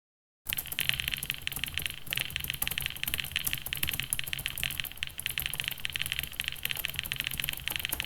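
Fast typing on a computer keyboard: a dense, continuous run of key clicks that starts about half a second in.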